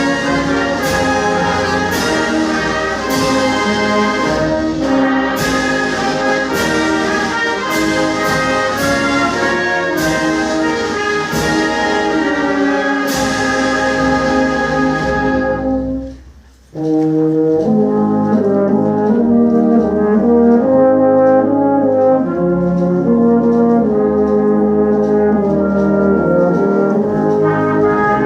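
Brass band playing, with sharp percussion strikes punctuating the music. About 16 s in, the music breaks off for a moment, then resumes more softly without the strikes.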